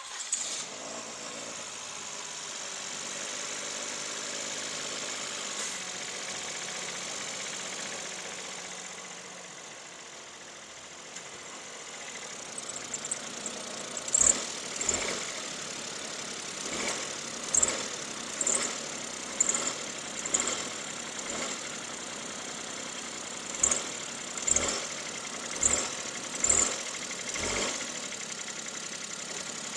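Suzuki Stingray engine starts and runs, and about halfway through its accessory drive belt begins chirping: short, high squeaks, roughly one a second in two runs. This is the cricket-like chirp of the belt slipping on a worn alternator pulley while the alternator is loaded by the headlights and air conditioning.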